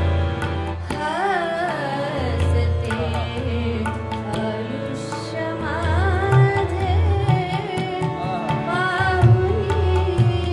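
A woman singing a Marathi ghazal in ornamented Hindustani style, her phrases gliding up and down. She is accompanied by harmoniums holding steady chords and by tabla with deep bass strokes and sharp clicks.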